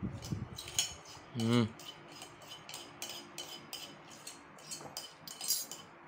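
Metal spoon clinking lightly against dishes and glassware, a string of small clinks at roughly two a second. A short vocal sound comes about a second and a half in.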